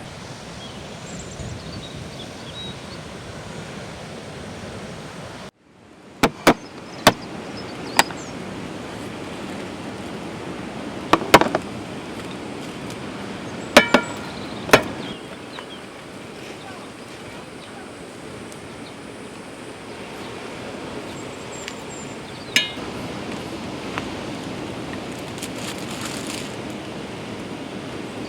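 Steady sea-surf wash, broken by a series of sharp clicks and knocks, the loudest in small clusters about 11 and 14 seconds in.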